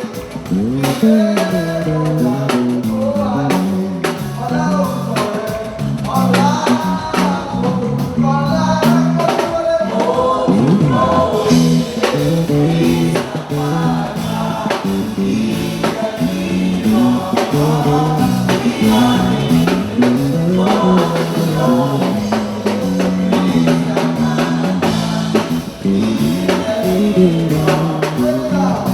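Music with singing over drums and other instruments.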